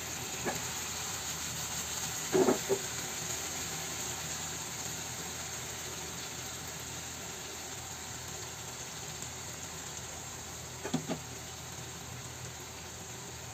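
Fish and brinjal curry simmering in a pan, a steady bubbling sizzle. A couple of brief knocks stand out, the loudest about two and a half seconds in and another near the end.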